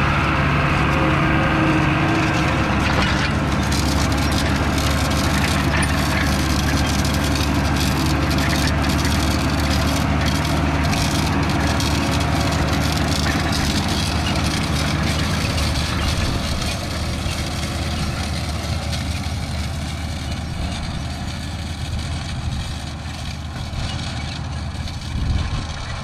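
International Harvester 86 series tractor engine running steadily as it pulls a White 8100 planter past, with scattered clicks and rattles over it. The engine fades after about sixteen seconds as the tractor moves away.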